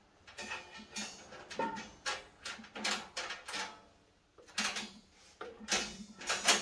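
Metal parts clattering and clinking as they are handled: a string of irregular sharp knocks and clicks, with a short lull about four seconds in.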